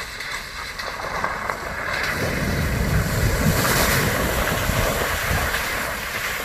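A 4x4 driving through a mud bog, its tyres churning and splashing through water and mud with the engine pulling under load. The splashing swells to its loudest about halfway through, then eases.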